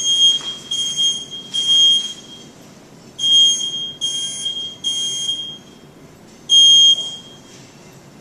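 Smoke alarm sounding from its test button in the standard three-beep pattern: loud, shrill beeps about half a second each, two groups of three, then a single beep before it stops.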